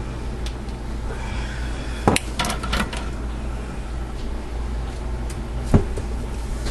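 A few sharp clinks of glass canning jars knocking against each other and the metal rack of a pressure canner as they are set in: one about two seconds in, a quick few just after, and another near the end. A steady low hum runs underneath.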